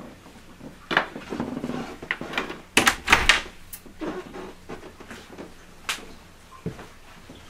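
A door and closet being handled in a small room: a run of knocks and clatters, the loudest pair about three seconds in and a last one near six seconds.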